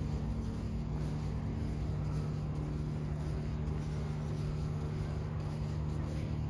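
Steady low hum of an engine or motor at a constant pitch, with a low rumble under it.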